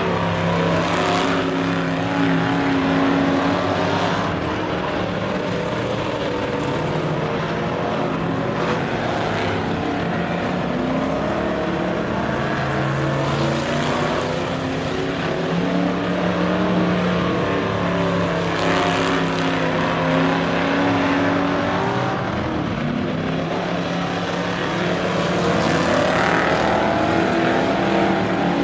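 A field of stock cars racing around a short oval, several engines running hard at once, with cars passing close by every few seconds.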